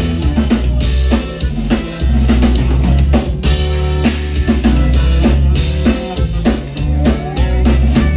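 Live conjunto band playing the opening bars of a Tejano song: drum kit keeping a steady beat over electric bass, button accordion and guitar, no singing.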